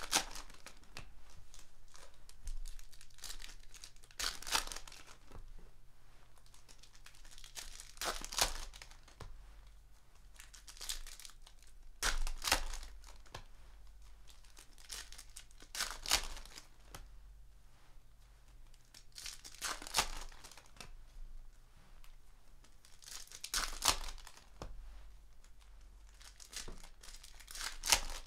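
Foil retail packs of Panini Prizm basketball cards being torn open by hand and the wrappers crinkled, in short bursts every few seconds.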